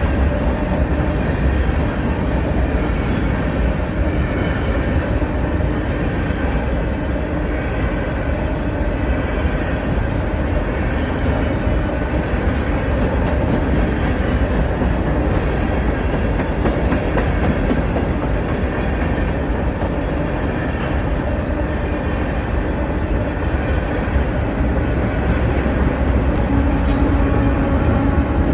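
Train passing close by: a loud, steady rumble of the cars rolling on the rails, with some clickety-clack of wheels over the track.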